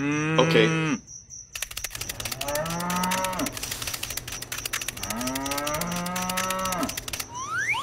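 Cattle mooing three times, long drawn-out moos, over a fast continuous clicking rattle. A short rising whistle comes near the end.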